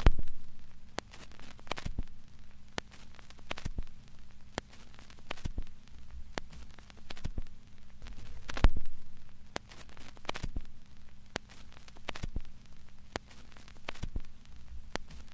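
Low steady hum with irregular clicks and crackles scattered throughout, one louder click just past halfway.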